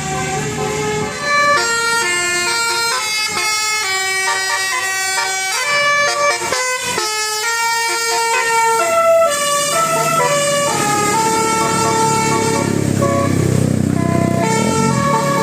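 Bus telolet air horn with trumpet horns playing a rapid melody of changing notes. A low rumble joins in under it about ten seconds in.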